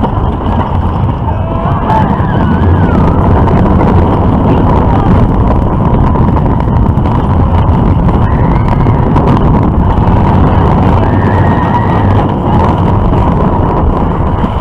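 Mine train roller coaster running along its track, recorded from on board: a loud, steady rumble and clatter of the train's wheels, mixed with wind on the microphone.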